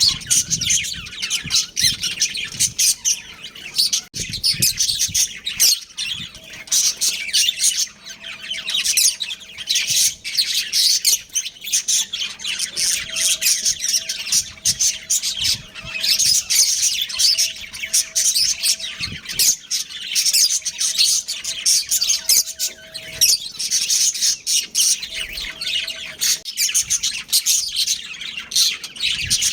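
Budgerigars chattering continuously: rapid, overlapping high-pitched chirps and warbles with occasional squawks.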